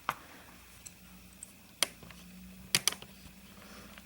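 A few sharp clicks and taps of hard plastic and small metal parts, one just after the start, one about two seconds in and a close pair near three seconds: a sewing machine's plastic covers and screws being handled while the screws are refitted.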